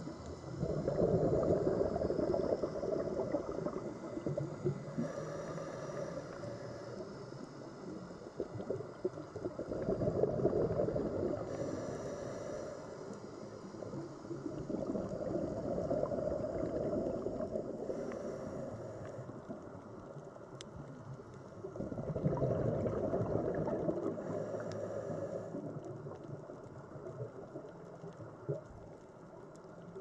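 Scuba diver's breathing heard underwater: exhaled bubbles bubble and gurgle from the regulator about every six seconds, with a fainter hiss of inhalation between them.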